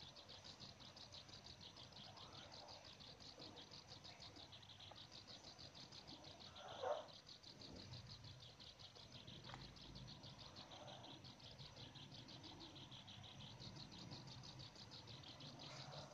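Near silence: faint, steady cricket chirping in a rapid high trill that breaks off now and then, with one brief soft sound about seven seconds in.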